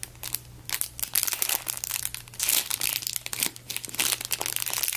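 Clear plastic squishy packaging crinkling in irregular crackles as hands turn the squishy inside the bag, over a faint steady low hum.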